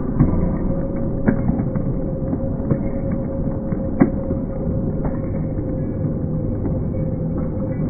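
Arena crowd din picked up on a phone microphone: a steady, fairly loud rumble with a faint steady tone and a few sharp clicks.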